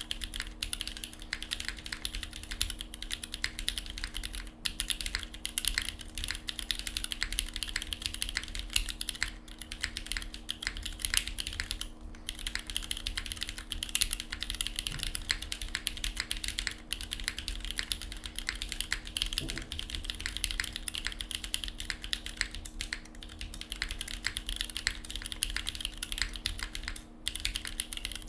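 Steady, fast typing on the alpha keys of a SingaKBD Kohaku r2 gasket-mount mechanical keyboard: unfoamed, with an aluminium plate, lubed linear switches (Cherry MX Hyperglide black housings with Kailh Razer Orange stems) and GMK Panels keycaps. The keystrokes come in a continuous stream broken by a few short pauses, over a faint steady hum.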